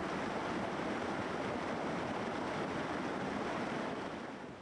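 Fast-flowing river water rushing steadily, fading away near the end.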